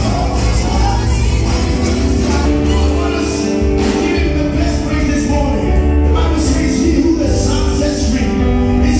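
Church worship team singing a gospel song into microphones over amplified band accompaniment, with long held notes and a heavy bass.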